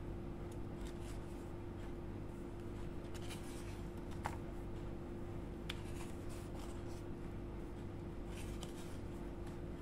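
Paper and glossy photo cards rustling and sliding as they are handled and laid out, with two light clicks, about 4 and 6 seconds in, over a steady background hum.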